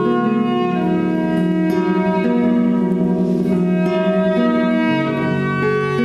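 Violin and acoustic guitar playing a slow piece together, the violin bowing long held notes over the guitar.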